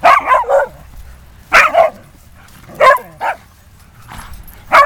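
Dogs barking and yipping in short sharp bursts while they play-wrestle, a string of about five barks, some in quick doubles.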